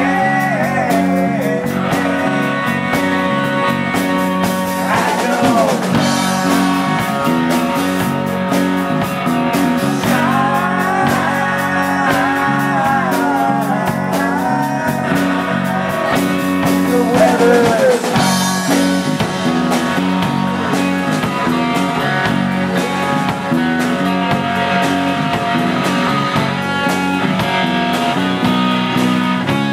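Live rock band playing: strummed acoustic guitar, electric guitar and drum kit, with a man singing lead in several phrases.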